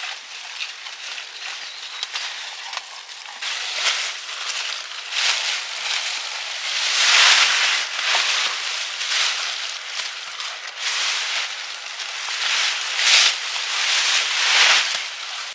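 Irregular rustling and crackling noise that rises and falls in surges, loudest about halfway through and again near the end.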